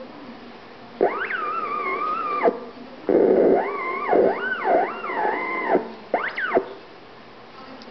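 Theremin-like electronic tone gliding in pitch, played in three phrases. It swoops up about a second in and holds a wavering note, then rises and falls several times, ending with a short up-and-down swoop.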